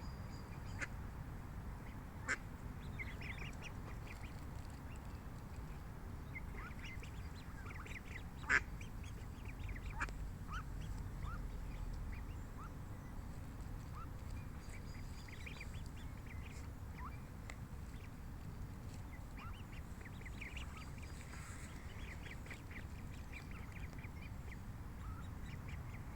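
Mother duck and ducklings calling while they feed: scattered short, high calls and a few sharp clicks, the loudest about eight seconds in, over a steady low rumble.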